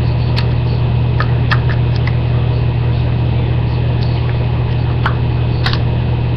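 Steady low hum, with a few small sharp clicks and taps as the plastic parts of a confetti popper are handled and its spring pushed down: several in the first two seconds and two more near the end.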